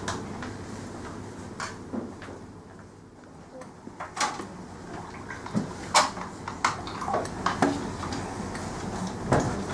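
Irregular light clicks and knocks over a low, steady room hum. They are sparse at first and come more often in the second half.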